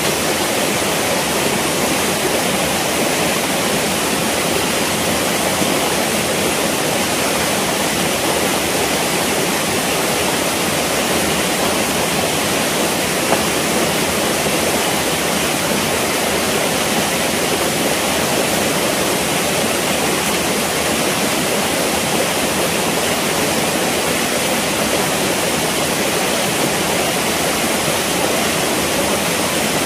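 Shallow, rocky forest stream flowing over stones: a steady, unbroken rush of water.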